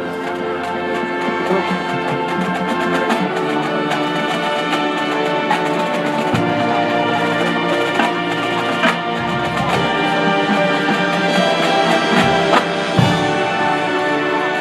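Marching band playing: brass holding chords over drums, with a few sharp drum hits in the second half.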